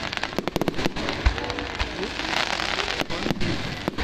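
Fireworks going off: rapid crackling with two dull booms, about a second in and just under two seconds in.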